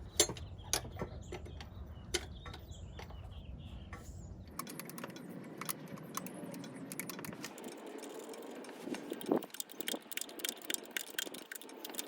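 Irregular light metallic clicks and taps of a 19mm hand tool working the high-pressure fuel line nut onto a Detroit DD15 injector. A low steady hum underneath stops suddenly about four and a half seconds in.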